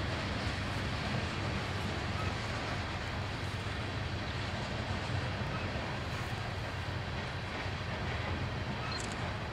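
Freight train of BNSF covered hopper cars rolling past at close range, a steady low rumble of wheels on rail with the diesel locomotives pulling away at the head end.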